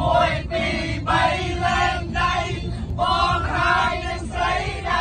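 Several men singing together in chorus, loud, in short sung phrases, over a steady low rumble of the bus.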